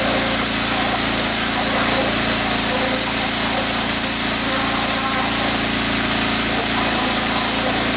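A pressure-washer wand jetting water into loose soil: a steady hiss of spray over the unbroken drone of a small engine running.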